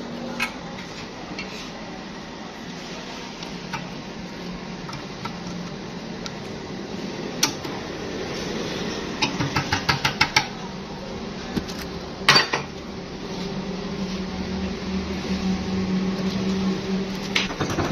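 Metal clinks and clicks of pliers and small steel parts being fitted onto the shaft of an electric water-pump motor: scattered single clicks, a quick run of clicks about nine to ten seconds in and a sharp loud click about twelve seconds in, over a steady low hum.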